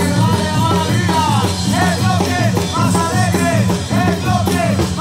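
Live brass band playing: sousaphones, trumpets and other brass carrying a melody over a steady bass line, with bass drum and cymbals keeping the beat.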